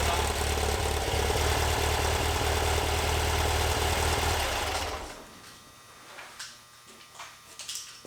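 Newly installed air-cooled flat-four engine of a 1964 VW bus idling steadily, then shut off about five seconds in. Faint scattered clicks and ticks follow.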